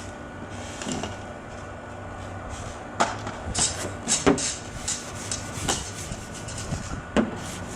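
A run of sharp knocks and clicks, about six of them, starting about three seconds in and ending with one near the end, over a low steady hum.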